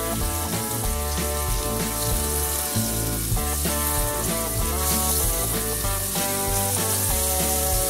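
Flour-dredged steaks sizzling as they fry in hot fat in a cast-iron skillet, under background music with sustained notes and a changing bass line.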